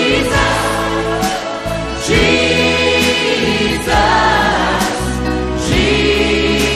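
Gospel worship song: a choir singing held, sustained phrases over instrumental backing.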